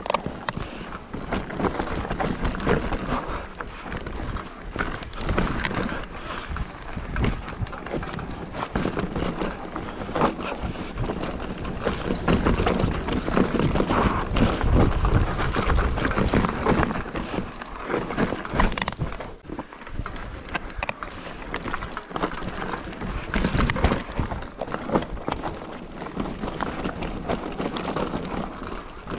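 Mountain bike clattering and rattling down a rough, rocky mountain trail: a dense, continuous run of knocks and rattles, loudest around the middle.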